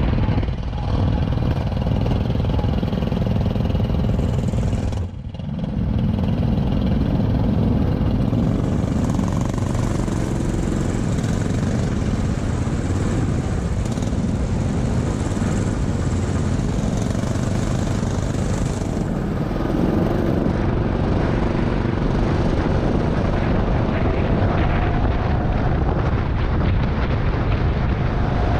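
Rental go-kart engines running, heard from onboard a kart in a line of karts, with a brief dip about five seconds in. Near the end the kart is out on the track and its engine note rises as it picks up speed.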